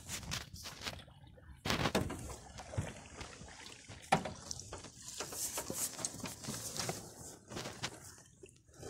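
Paddle strokes in the river water with irregular knocks against a metal jon boat's hull, mixed with rubbing and bumping from the handheld phone.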